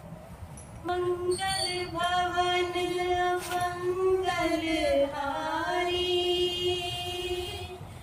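A woman singing a slow melody in long held notes, starting about a second in, with a falling and rising glide in pitch around the middle.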